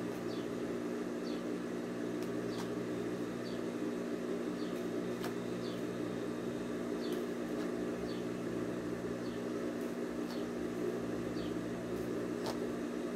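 A steady low mechanical hum, with faint short high chirps repeating about every second, like small birds, and a few soft clicks.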